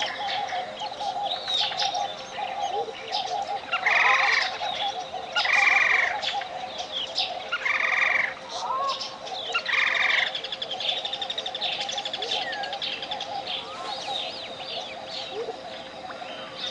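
Tropical jungle birds chirping and trilling, one of them giving a loud call four times about two seconds apart. Under the birds runs a steady 528 Hz pure tone with a pulsing tone just above it, the layered monaural-beat tones of a relaxation track.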